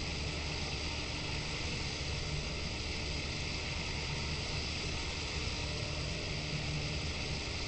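Boat motor running steadily under a constant hiss of wind and water.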